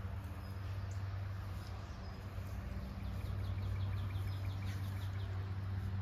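A songbird trilling: a quick run of short, high, falling notes starting about three seconds in, over a steady low hum.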